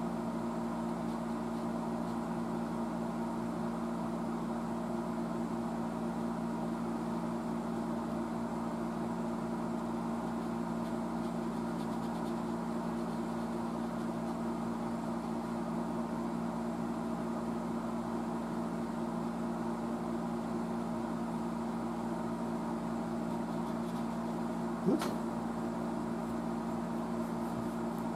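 Steady motor hum, holding one low pitch with a few higher tones over it, broken by a single sharp click about 25 seconds in.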